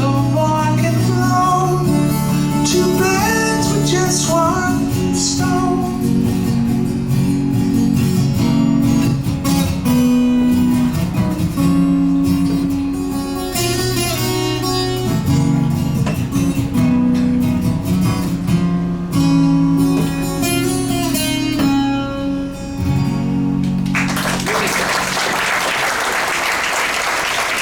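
Acoustic guitar playing the closing instrumental passage of a song, with sustained chords and melodic runs, which ends about 24 seconds in. Audience applause follows.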